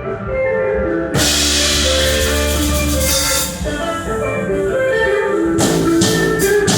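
Live instrumental band playing at a sound check: quick plucked, ringing melody notes over a drum kit, with a held bass note. A cymbal crash comes about a second in, and several more cymbal hits come near the end.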